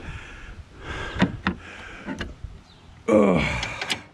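A few light clicks and knocks, then, about three seconds in, a man lets out a loud groaning sigh that falls in pitch and fades.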